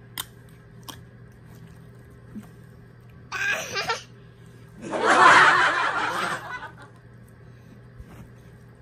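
A small child laughing in two bursts, a short one about three seconds in and a longer, louder one about five seconds in. A couple of light clicks come near the start.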